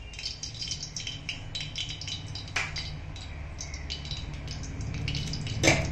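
Oil heating in a hot kadai on a gas stove, with faint irregular crackling over a steady low hum. A sharp click about two and a half seconds in and a louder knock near the end.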